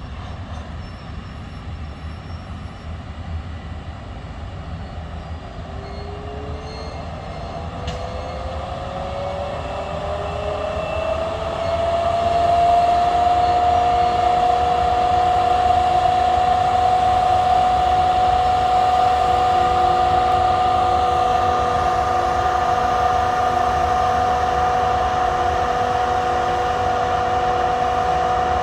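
Class 18E electric locomotive with a whine that rises in pitch and then holds a steady note, over a low rumble that grows louder as the train draws near.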